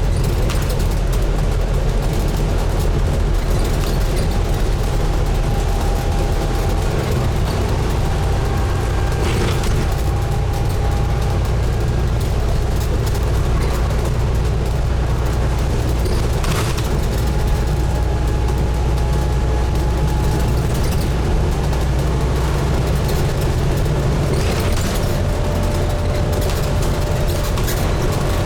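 Diesel engine of a Scania N250UD double-decker bus running under way, heard from inside the bus, with steady road and cabin noise. The engine note shifts about seven seconds in and again near the end, with a faint whine above it.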